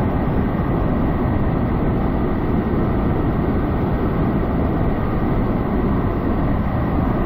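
Steady, loud rushing of a tall waterfall, an even wash of water noise without breaks.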